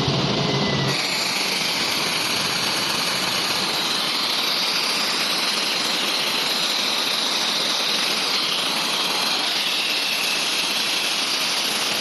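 Fidelity LUY310-25 air compressor running under test. About a second in, its low running hum gives way suddenly to a steady, loud rush of air.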